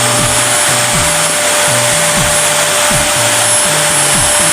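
Vacuum cleaner running steadily, a constant rushing noise with a fixed whine.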